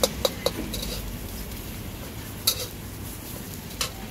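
Long-handled metal spatula clinking and scraping against a metal wok while an omelette is turned in hot oil: three quick clinks at the start, a louder one about two and a half seconds in, and another near the end.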